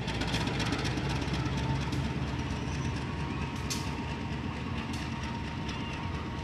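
CC201 diesel-electric locomotive moving slowly past: a low engine rumble and fast clacking of wheels over the rail, busiest in the first few seconds, with a faint steady whine and a few single sharp clacks later.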